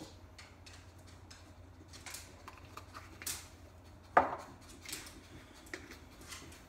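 Dried spices being shaken from small jars into a crock pot: a few short rattling shakes, and one sharp knock about four seconds in as a jar is set down on the counter.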